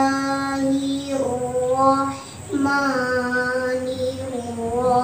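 A young girl chanting Quranic recitation (tilawah) in the melodic, drawn-out competition style, in maqam bayati. She holds long notes that slide and waver, with a short breath about two seconds in before the next long phrase.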